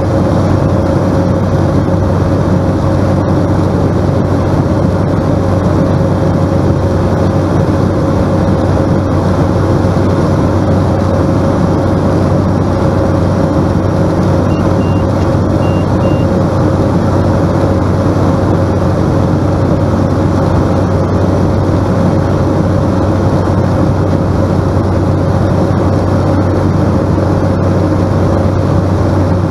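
Cessna 208 Caravan's Pratt & Whitney PT6A turboprop and propeller droning steadily at approach power, heard inside the cockpit, with a constant low hum and a steady whine above it.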